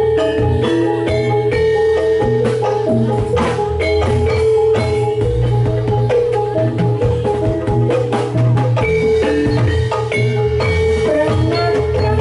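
Javanese gamelan music for a jathilan dance, played loud: metal-keyed mallet instruments strike a quick run of ringing notes over a steady low drone.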